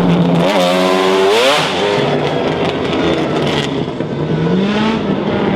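Racing car engine running steadily, revved once in a rise lasting about a second that then drops away, with a smaller rise in pitch near the end.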